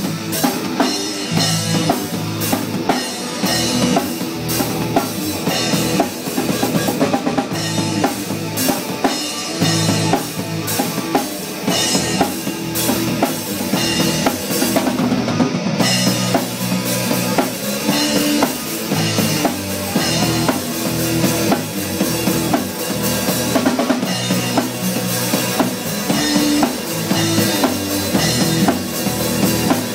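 Live rock band playing loud: a drum kit keeping a steady beat on bass drum and snare, with electric guitars over it.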